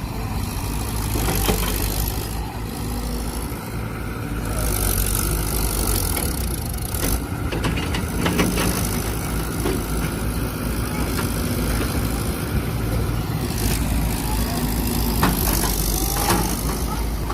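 Excavator's diesel engine running steadily under load, with a few sharp metallic knocks.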